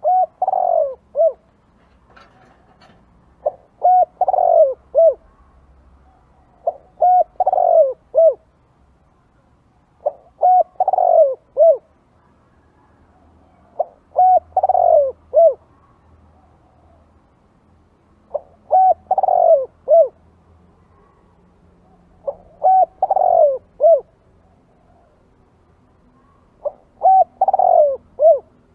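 Spotted dove cooing: the same phrase repeated eight times, about every four seconds. Each phrase is a few short coos around one longer, falling coo.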